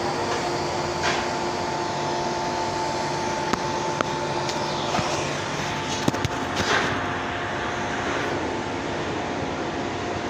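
Steady mechanical hum and hiss from a running motor or blower, with a few sharp clicks a few seconds in.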